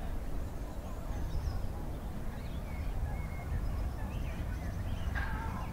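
Open-air park ambience: a steady low rumble with scattered small bird chirps, and a short honk-like call about five seconds in.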